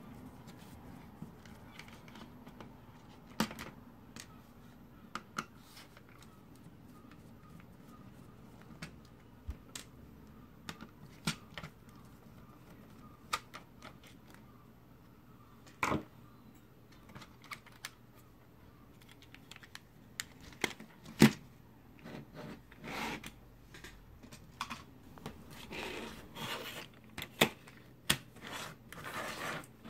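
Small screws being undone with a hand screwdriver from a circuit board, giving scattered light clicks and taps as metal and plastic touch the board and desk. Over the last several seconds come quicker rustling clicks as the board is handled and lifted from its plastic frame.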